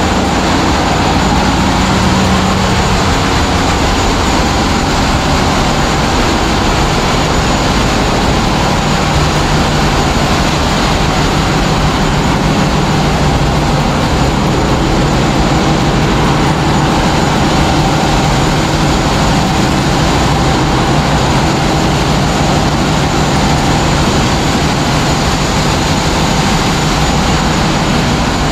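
Loud, steady drone of a passenger ship's engine-room machinery running, an even roar with a low hum under it that does not let up.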